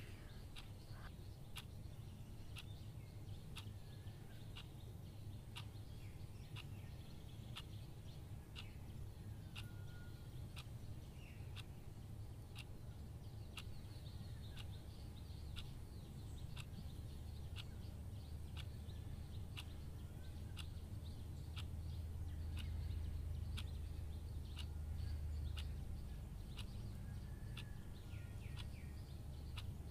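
Quiet background ambience with faint bird chirps and a faint, regular ticking. A low rumble swells a little past the middle.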